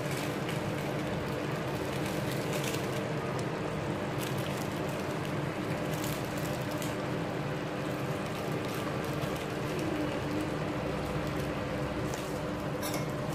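Pot of chicken afritada stew simmering in tomato sauce: a steady bubbling with scattered small pops, over a steady low hum.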